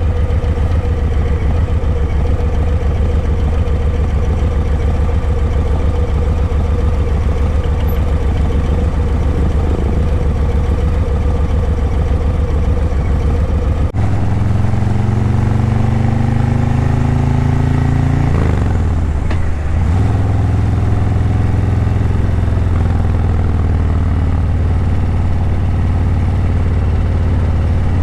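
Harley-Davidson Breakout 117's Milwaukee-Eight 117 V-twin running through a Vance & Hines Eliminator 300 slip-on exhaust while riding. It is a steady low rumble that changes abruptly about halfway through, then shifts in pitch, with a quick dip and rise about two-thirds of the way in.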